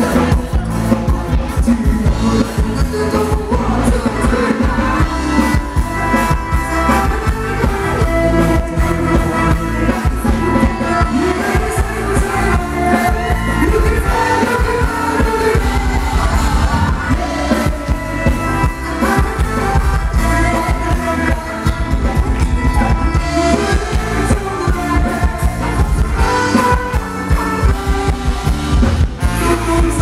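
Live band playing a Thai ramwong dance song with a singer, loud and amplified, over a steady driving beat.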